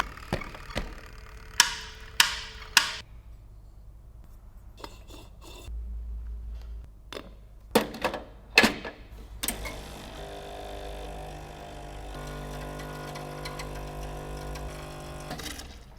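Sharp clicks and knocks of the Ascaso Steel Duo espresso machine's parts being handled, some ringing, then the machine running with a steady hum for about six seconds that cuts off near the end.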